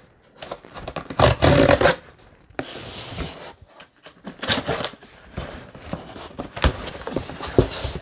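A cardboard shipping box being opened by hand: packing tape is slit and ripped, and the cardboard flaps scrape and rustle. The sound comes in irregular noisy bursts, the loudest about a second in, with a few sharp clicks.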